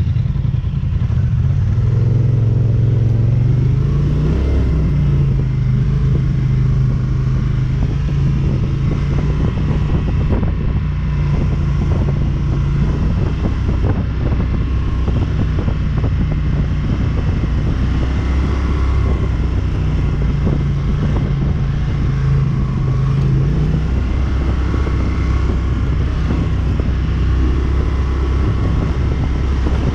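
ATV engine running while riding, loud and continuous, its pitch stepping up and down every few seconds.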